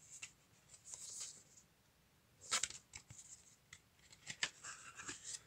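Cardboard CD gatefold sleeve being handled and opened: card sliding and scraping against fingers, with two sharp clicks, about two and a half and about four and a half seconds in.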